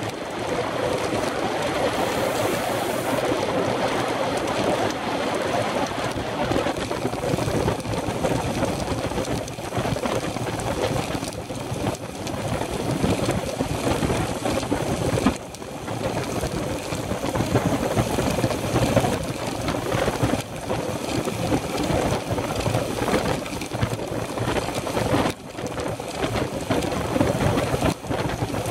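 Steady rush of wind and road noise on the microphone of a handlebar-mounted camera on a road bike riding at speed. It dips briefly twice.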